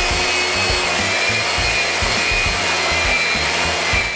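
Random orbital sander running steadily, sanding the face of a glued-up hardwood blank with 80-grit paper: a steady hiss with a thin whine.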